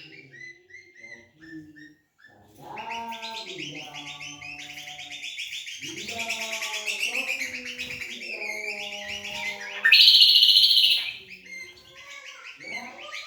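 Kecial kombok songbirds singing against each other, a long run of fast, chattering high trills. About ten seconds in comes one loud, piercing call that lasts about a second.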